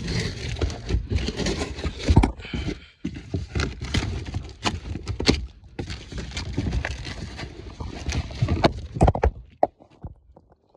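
Irregular knocks, scrapes and rustling from handling a box of new car struts, the packaging being opened to look at them. The knocking dies away near the end.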